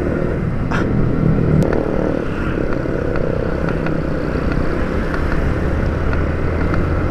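Yamaha Vixion R motorcycle's single-cylinder engine running steadily while riding, with road noise.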